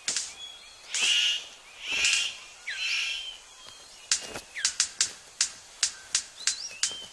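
Male superb bird of paradise courting: three harsh calls about a second apart, then from about four seconds in a quick run of sharp clicks, roughly four a second, during his display. Thin whistled calls of other forest birds sound behind.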